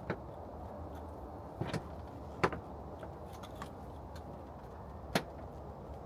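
A few short, sharp clicks and knocks of plastic bumper trim pieces being handled and fitted, four in all, the loudest about two and a half seconds in and another near five seconds, over a steady low background hum.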